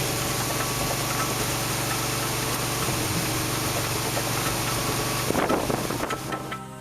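Combine harvester running steadily while harvesting soybeans: a constant engine hum under a broad mechanical hiss.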